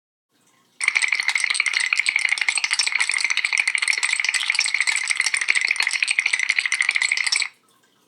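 Rapid, continuous rattling, a dense run of small clicks starting sharply about a second in and stopping abruptly after about six and a half seconds.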